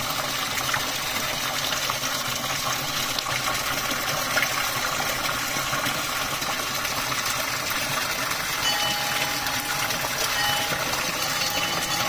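Steady rush of water pouring from a natural spring.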